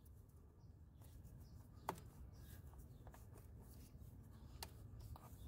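Near silence: a faint low hum of room tone, with one faint click about two seconds in and a softer one near the end.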